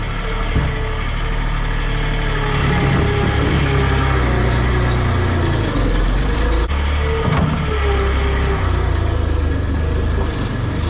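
Farm tractor engine running steadily, a low rumble with a tone that wavers slightly in pitch.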